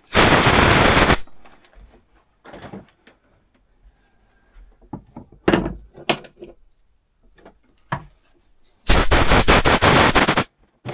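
Air blow gun firing two blasts of compressed air, one about a second long at the start and one about a second and a half long near the end, blowing dirt out of a chainsaw guide bar's oil holes and parts. A few short knocks of parts being handled come in between.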